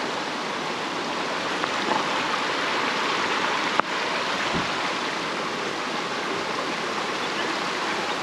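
Steady rush of water from rain still falling and a river flowing past, with one short click a little under four seconds in.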